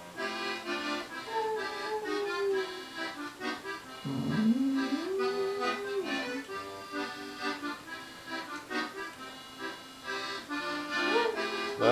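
Melodeon playing a waltz tune while a dog howls along in long drawn-out notes. The first howl slides slowly down. A louder one about four seconds in rises and then holds its pitch for about two seconds. Another rising howl begins near the end.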